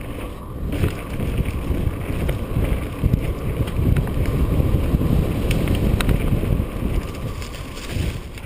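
Mountain bike riding down a dirt singletrack: wind buffeting the camera microphone over the rumble of the tyres on the trail, with scattered clicks and rattles from the bike.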